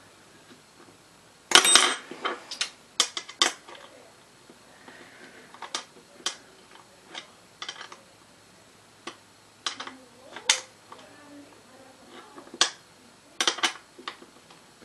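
Irregular metallic clicks and clinks of bolts and a small hand tool against the metal mounting plate under an office-chair seat being assembled, with the loudest clatter about one and a half seconds in.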